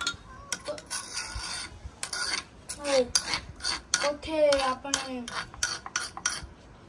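A wooden pestle (ghotna) grinding and rubbing soaked almonds in a stone dauri mortar, with irregular scraping and knocking strokes. A few short pitched squeaks glide up and down about three seconds and four to five seconds in.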